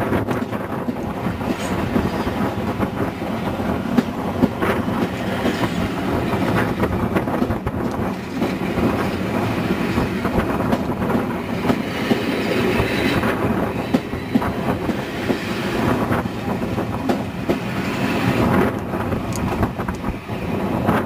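Passenger coaches of a departing train rolling past, their wheels clicking over rail joints with a steady rumble.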